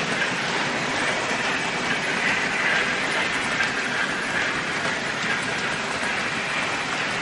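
Wagons of a Märklin HO-scale model timber train, loaded with logs, rolling steadily along the track: an even rolling noise of small wheels on the rails.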